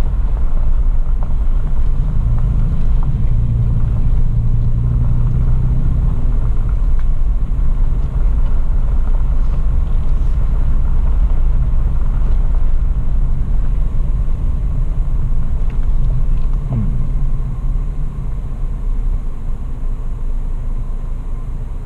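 Toyota FJ Cruiser's 4.0-litre V6 running at low speed with its tyres rumbling over a dirt track, heard from inside the cabin as a steady low drone. It eases off slightly near the end.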